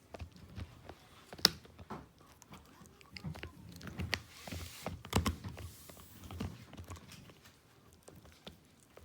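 Shiba Inu gnawing on a chew bone: irregular crunches and clicks of teeth on the chew, with one sharp click about a second and a half in and a busier stretch of chewing in the middle.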